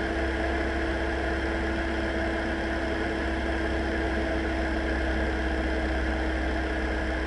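Steady cockpit drone of a Diamond DA40's engine and propeller in cruise, with an unchanging hum running through it.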